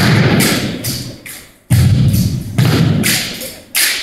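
Heavy thuds and sharper slaps from an exhibition drill team's routine, struck one after another, each ringing on briefly in the room, with the loudest hits a little under two seconds in, again a second later and just before the end.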